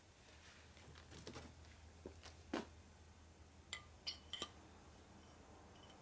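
Faint, light metallic clicks and clinks from handling a Harley 65A 12-volt generator's armature and end housing as they are fitted together: about half a dozen separate taps, the loudest about two and a half seconds in, the later ones with a brief ring.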